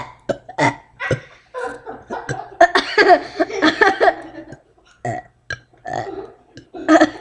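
A young boy burping over and over: a run of short burps, with a longer, drawn-out stretch about three seconds in.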